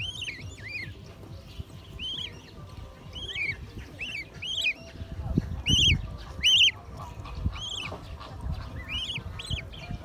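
Black swan cygnets peeping: repeated high, arched calls a few a second, two loudest about six seconds in. Low rumbling bumps of the phone being handled come in around the middle.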